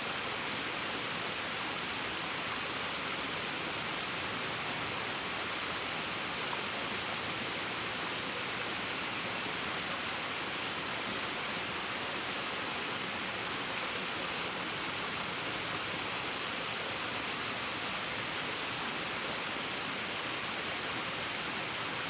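Waterfall rushing with a steady, unbroken splashing hiss.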